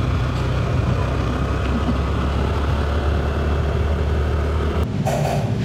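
Motor scooter engine running steadily while being ridden, a low drone under a steady hiss of road noise; the drone cuts off abruptly about five seconds in.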